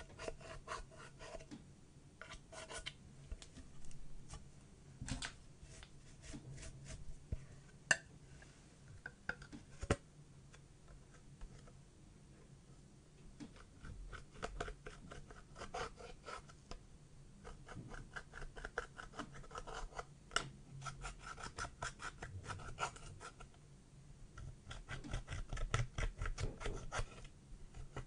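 Metal-tipped stylus scraping into pressed eyeshadow and crumbling it out of the palette pans. It makes a run of small dry scratches and crumbly clicks, with a few sharper ticks, and gets busier near the end.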